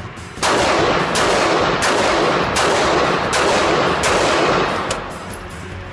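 Glock 26 9mm pistol fired in a quick string of about six or seven shots, roughly 0.7 s apart. The shots start about half a second in and stop about a second before the end, running together under heavy echo.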